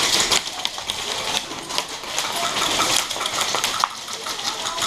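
Airsoft guns firing in rapid bursts, a dense run of sharp clicks and cracks.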